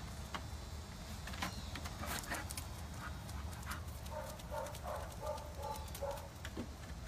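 A dog working at a plastic bucket with its mouth: irregular clacks, knocks and scrapes. In the last three seconds comes a run of short pitched squeaks, about three a second.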